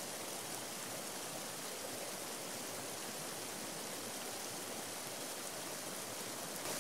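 Steady, even rush of a shallow, fast-flowing river.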